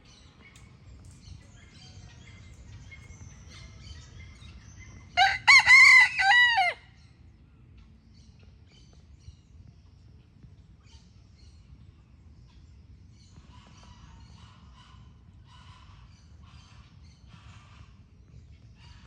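A rooster crows once, about five seconds in: a loud call of roughly a second and a half, broken into several rising-and-falling parts. Faint bird chirps are scattered around it over a low background rumble.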